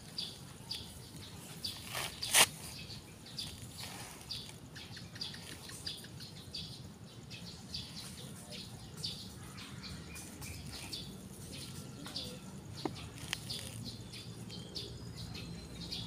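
Birds chirping with many short, repeated high calls, over soft rustling and scraping as leafy cuttings are handled and pushed into sand. A single sharp knock about two seconds in is the loudest sound.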